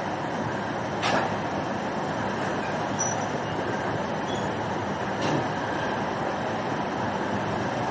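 Steady industrial running noise of a rotational moulding machine, with two short sharp noises about a second in and about five seconds in.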